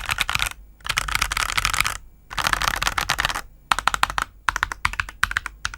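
Typing on a GamaKay CK68 mechanical keyboard fitted with Ajazz Diced Fruit Banana tactile switches and cherry-profile PBT keycaps: bursts of fast keystrokes with short breaks, turning into slower, separate keystrokes from about four seconds in.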